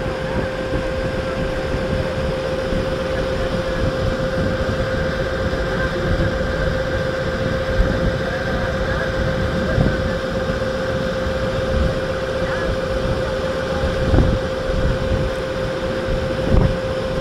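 Tour boat's engine running steadily with a constant hum, while wind buffets the microphone in irregular gusts.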